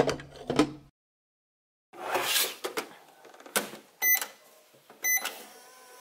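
Pink plastic toy microwave in use: a glass knocks as it is set inside, the plastic door clatters and clicks shut, two short electronic beeps sound as its buttons are pressed, and about five seconds in its steady humming running sound starts as the pretend timer counts down.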